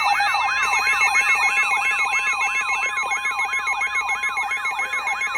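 Emergency alert tones signalling a severe thunderstorm warning. A steady tone near 1 kHz, like the NOAA Weather Radio warning alarm, sounds under an electronic alarm that warbles up and down about three times a second.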